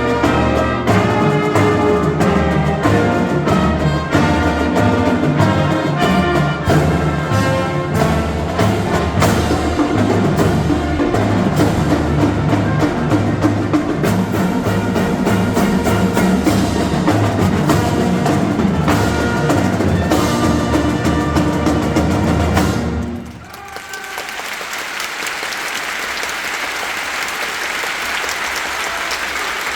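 Marching band brass and drums playing a piece with a steady beat, which ends abruptly about three-quarters of the way through, followed by audience applause.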